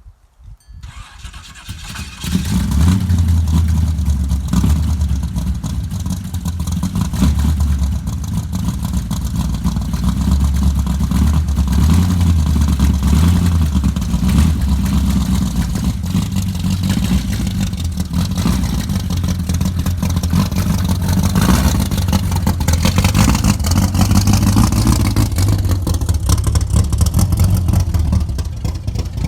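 Car engine running loud and steady, coming up to full level about two seconds in.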